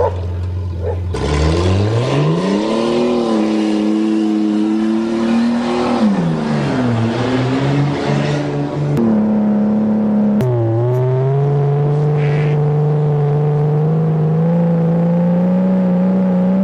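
1982 Toyota Cressida's engine accelerating on the road. The revs climb steeply about a second in, hold, fall back around six seconds in, drop again around ten seconds in, then rise slowly. It is running well again after water was blown out of its fuel injection system.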